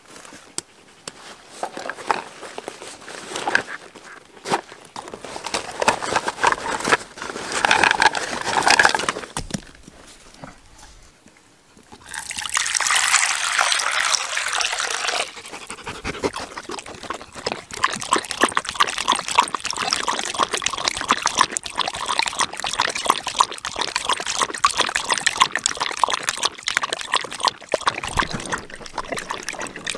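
Water poured into a small handled cup, a steady splashing pour of about three seconds starting about twelve seconds in, followed by continuous softer splashing and dribbling in the water.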